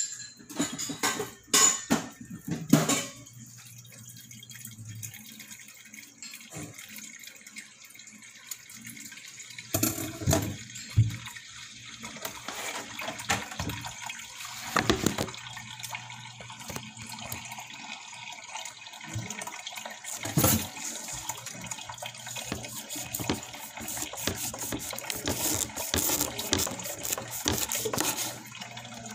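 Kitchen clatter of pots and dishes, a few sharp knocks in the first three seconds and more around the middle, over water running and splashing, which grows busier toward the end.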